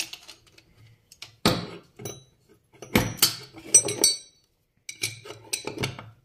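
Steel hand tools clinking and clanking against each other and the metal of a bench vise as locking pliers and a bushing extractor are handled. There are a handful of separate knocks, grouped near the start, around the middle and near the end, and a few of them carry a short metallic ring.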